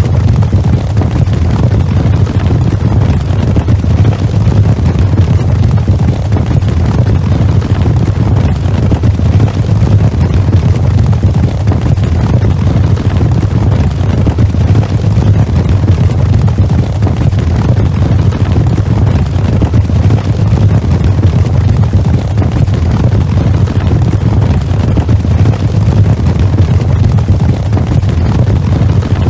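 Sound effect of a cavalry charge: the dense, steady rumble of many horses' hooves galloping together, heaviest in the low end, with no pause or change.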